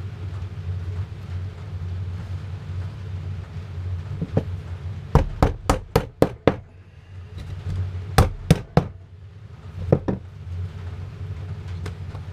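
Hammer tapping small nails into a wooden beehive frame: a single light tap, then a quick run of six taps, a pause, three more, and one last tap. A steady low hum runs underneath.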